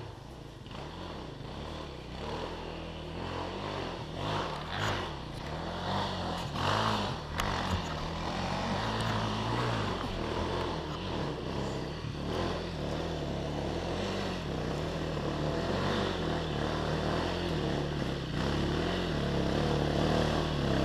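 Enduro dirt bike engines running, the engine note wavering up and down as the throttle is worked. A few short knocks about four to seven seconds in.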